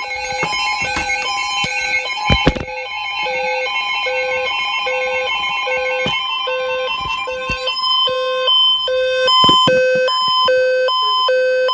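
Several weather alert radios sounding their electronic alarm beeps at once: overlapping repeated beeping tones at different pitches, the lowest pulsing on and off about once or twice a second. The beep pattern changes about three-quarters of the way in, and a few sharp clicks sound over it.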